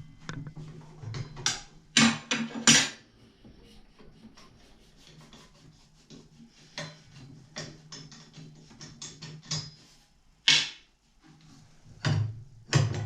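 Irregular clicks, knocks and rubbing of hand tools and metal parts as the blade is taken off a circular saw.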